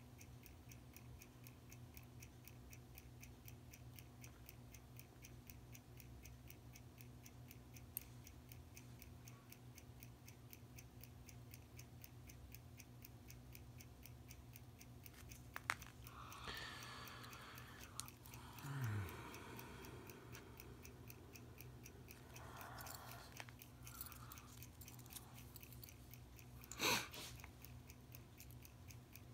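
Faint, steady, fast ticking like a running timepiece, under a low hum. Small tool clicks and rustling over the middle, and one sharper click near the end as watchmaker's tools work on a watch movement.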